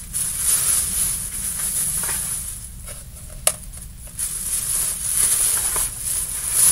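Rustling and handling of a bag as things are packed into it, in uneven swells. There is a single sharp click about three and a half seconds in.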